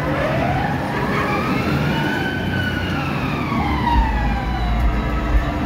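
Kamikaze-type fairground swing ride running, with a siren-like wail that slides up in pitch, falls back, and begins to rise again. A low rumble with a few thumps joins about two-thirds of the way through.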